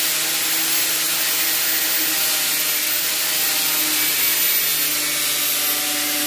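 Angle grinder fitted with a sanding disc of about 150 grit, running steadily against the cut edge of a plastic headlight housing to grind off excess plastic. It starts abruptly just at the outset and holds an even pitch, a steady rasp with a faint motor whine.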